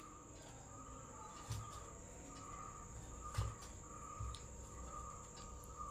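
Quiet background with a faint, steady high whine and a short repeating chirp, broken by a few soft low bumps.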